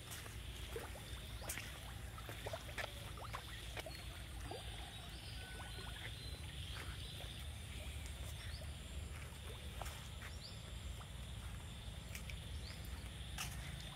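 Faint outdoor ambience: a steady low rumble with scattered soft clicks and a few brief, faint chirps.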